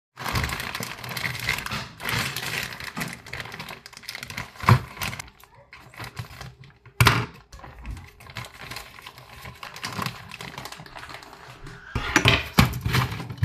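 Plastic food bag crinkling and rustling as it is opened and handled, with sharp knocks about five and seven seconds in and clattering near the end as a plate of nuggets is moved.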